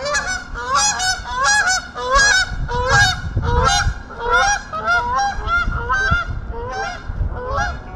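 A flock of geese honking loudly as they fly past, many overlapping calls several times a second without a break.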